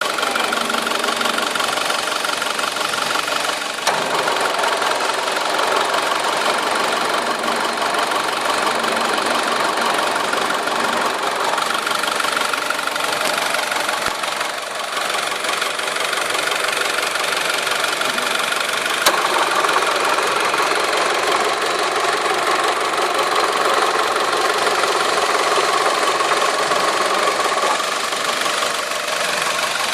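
2008 Mitsubishi Lancer GTS engine bay running with a strange, steady mechanical noise that the owner puts down to the A/C compressor. A click and a change in the tone of the noise come about four seconds in and again about nineteen seconds in.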